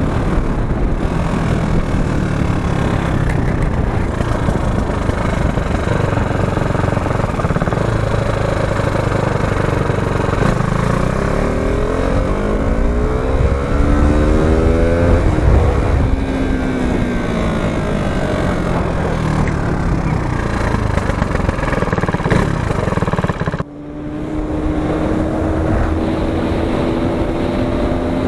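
KTM RC sport motorcycle engine running under way, with heavy wind and road noise. Its pitch climbs steeply over a few seconds around the middle, then falls away. About 24 s in the sound cuts abruptly to another motorcycle cruising, its steady engine note rising slowly.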